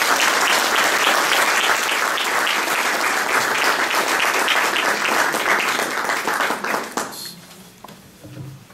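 Audience applauding, a dense steady clapping that dies away about seven seconds in, leaving a few faint knocks.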